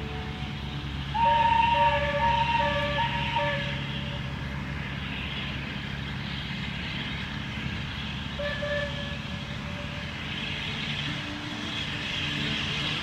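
Steam locomotive whistle giving a string of short blasts about a second in, then one more short blast later, over a steady low hum.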